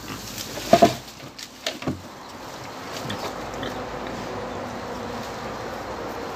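Pigs grunting, a few short calls in the first two seconds with the loudest about a second in, then a steady background hiss.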